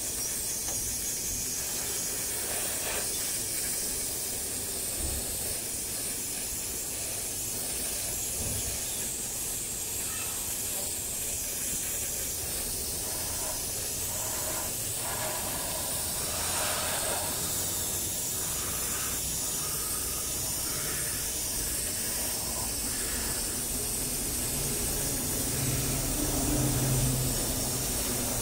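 Gravity-feed airbrush spraying paint: a steady hiss of compressed air through the nozzle.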